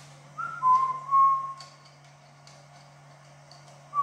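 A person whistling a few short notes, the loudest pair about half a second to a second and a half in, over a steady low hum.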